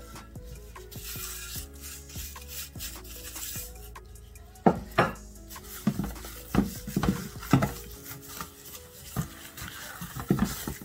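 Gloved hands rubbing and pressing dry jerk rub into raw spare ribs in a stainless steel pan, with a run of sharp knocks and slaps against the meat and pan that grows denser and louder from about halfway on.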